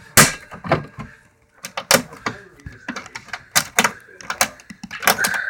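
Irregular sharp clicks and knocks as the hatch clips on a gas RC boat's hull are worked to open the cover.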